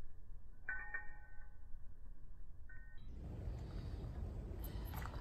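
Short electronic beeps, a cluster of tones about a second in and a brief one just before three seconds, followed by a steady background hiss with a few sharp clicks near the end.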